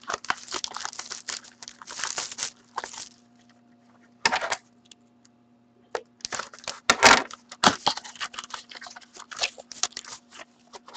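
Hands tearing open a small cardboard box of hockey card packs and handling the packs and cards inside: irregular rustling, tearing and crinkling, with a quieter pause a little past the middle and the loudest rip about seven seconds in.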